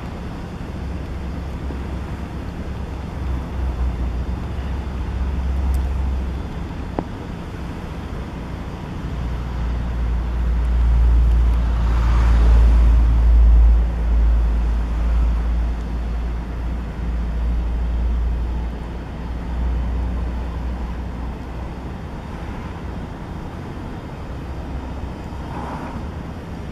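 Double-stack intermodal freight train rolling slowly past, a steady low rumble that swells for a few seconds about ten seconds in, with a brief higher-pitched rise at the loudest point.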